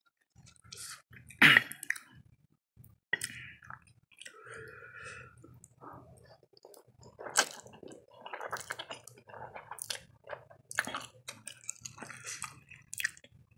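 A person chewing and slurping spicy instant noodles close to the microphone, with irregular wet mouth noises. There is one louder short throat or mouth sound about a second and a half in.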